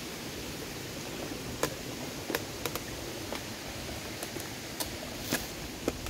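Footsteps on a creek bed, with irregular sharp snaps and crunches of twigs and dry leaves, about ten in all, over a steady rushing hiss.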